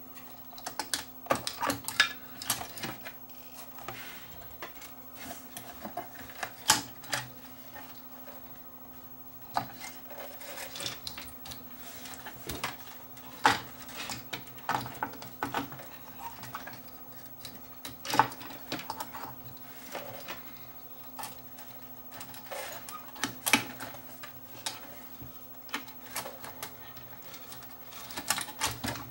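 Irregular clicks, taps and knocks of hands handling parts while a circuit board is fitted back into an old CRT monitor's chassis, over a faint steady hum.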